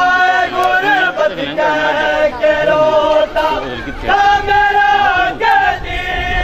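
A noha, an Urdu mourning lament, chanted by male voice in long held lines that bend in pitch between phrases.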